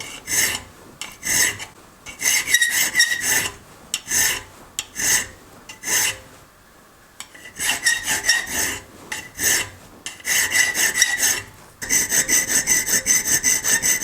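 Hand file rasping back and forth on the pivot end of a folding-knife blade, which is being shaped to turn in the handle. The strokes come in bursts with a pause of about a second and a half in the middle, then a quick even run of about five strokes a second near the end.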